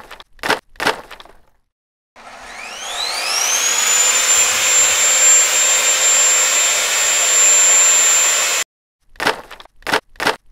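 A heavy wooden beam knocks onto a table saw three times. The table saw's motor then spins up with a rising whine and runs steadily at full speed while ripping a wooden board lengthwise, stopping abruptly. Several wooden knocks follow as cut battens are set down.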